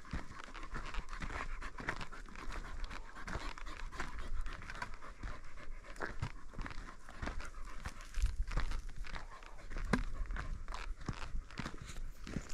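A dog panting steadily, with footsteps crunching on the loose, freshly dug dirt of the trail.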